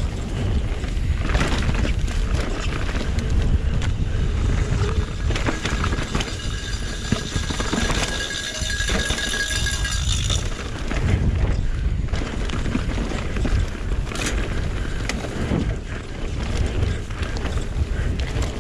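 A mountain bike racing downhill on a dirt trail: tyre and drivetrain noise with rattling knocks from the bike over rough ground, under heavy wind rumble on the action-camera microphone. About six seconds in a high squeal starts and holds for about four seconds.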